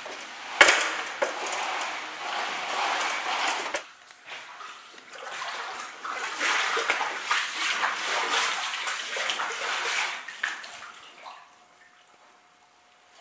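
Water sloshing and splashing on a flooded floor, coming in bouts with a sharp knock about half a second in, then fading away near the end.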